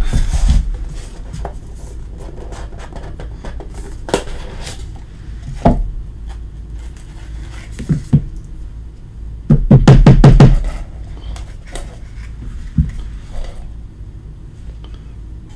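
A cardboard trading-card hobby box being opened and handled: scattered knocks and scrapes of the box, its foam insert and a paper sheet, with a louder burst of rustling and knocking about ten seconds in.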